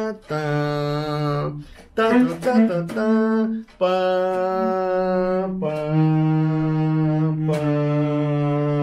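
A man's voice singing wordlessly, holding a slow run of long low notes of about two seconds each with short breaks between them, like a hummed horn line.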